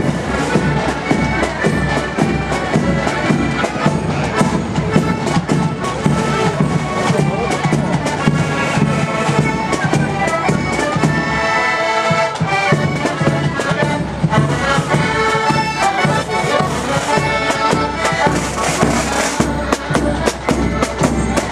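Marching accordion band playing a tune: many piano accordions sounding sustained reedy chords together over a steady bass drum beat, the low drum briefly dropping out about halfway through.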